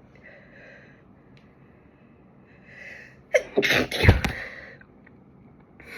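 A woman sneezes once, loudly, about three and a half seconds in.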